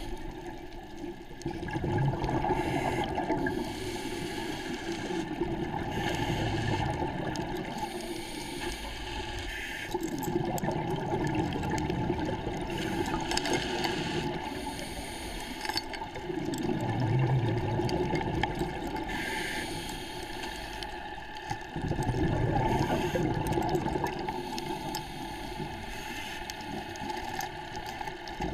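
Scuba diver's regulator breathing, heard underwater: exhaled bubbles gurgle out in swells every few seconds over a steady underwater rumble.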